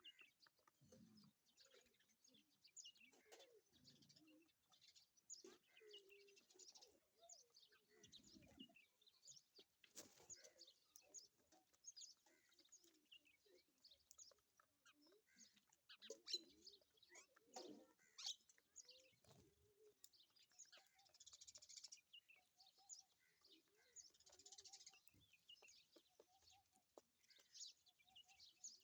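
Faint chirping of small birds: many short, high notes scattered irregularly throughout.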